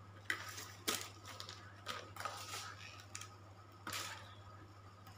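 Clear plastic bags rustling and crinkling in several short bursts as packs of cut fish are handled.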